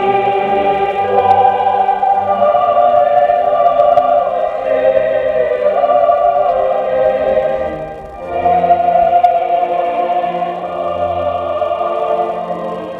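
Choir singing slow music in long held chords, with a short break between phrases about eight seconds in.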